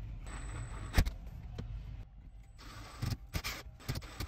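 Carpentry handling sounds as a pine framing board is fitted: one sharp wooden knock about a second in, then rustling and a few short clicks and knocks as a cordless drill is brought up to the board.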